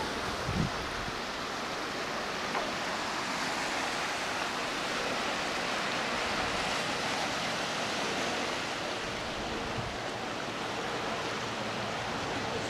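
Steady, even wash of distant surf on a rocky shore, with light wind.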